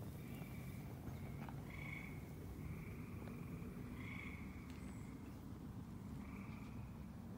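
Frogs calling: short trills, each about half a second long, repeated roughly once a second over a low steady rumble, with a couple of faint clicks.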